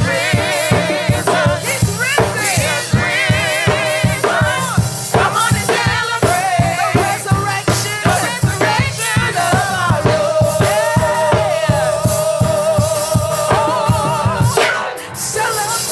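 Gospel praise music: voices singing with vibrato over a steady drum-kit beat.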